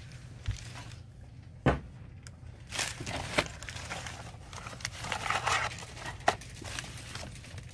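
Crumpled packing paper rustling and crinkling as an item is unwrapped, with a few sharp knocks of objects being handled and set down.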